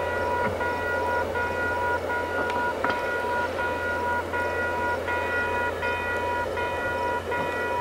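Railway level-crossing warning bell ringing in even, repeated strokes, about two a second, over the low rumble of a passenger train rolling past.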